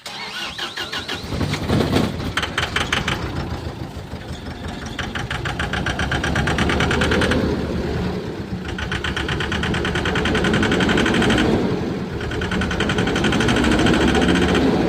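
Tata 1014 truck's diesel engine running with a fast metallic knock that comes in spells, with short breaks between them.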